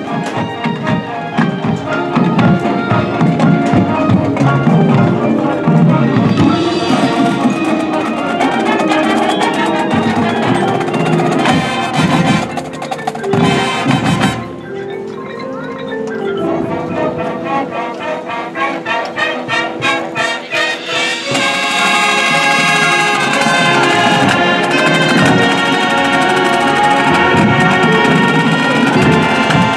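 High school marching band playing its field show, brass over mallet percussion. It drops to a softer passage around the middle, then the full band comes back in louder for the last third.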